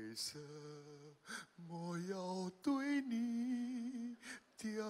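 A man singing unaccompanied into a microphone: a slow line of a Mandarin-language song, with long held notes that waver in pitch and short breaks between phrases.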